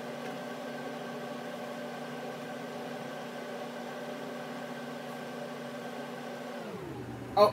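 A steady machine hum that drops sharply in pitch near the end, with a brief loud sound just before the end.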